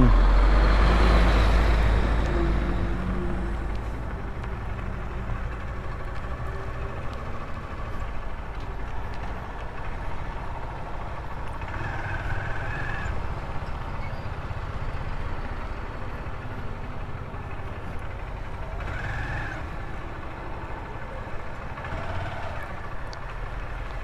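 Motorcycle riding noise, engine and wind together, loud at first and fading over the first few seconds as the bike slows. A steady low engine rumble follows as it rolls slowly or idles.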